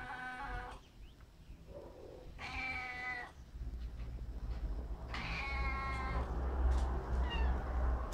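Domestic cat meowing three times: a long, drawn-out call that ends under a second in, then two shorter meows about two and a half and five seconds in. A low rumble runs underneath from about halfway through.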